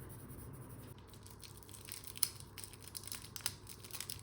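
Crinkling and crackling of a wrapper or package being handled, with irregular sharp clicks, starting about a second in; it is being opened with some difficulty.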